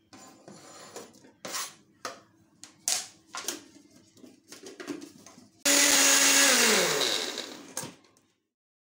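A few knocks and clicks as food is tipped into a Philips blender jar and the lid is fitted. Then, about five and a half seconds in, the blender motor starts suddenly and runs loudly for a couple of seconds, blending tomatoes with ginger and garlic, before winding down with a falling hum.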